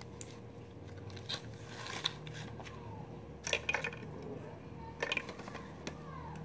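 Sheets of paper rustling and small plastic toy pieces clicking and knocking as they are handled, in a few short bursts.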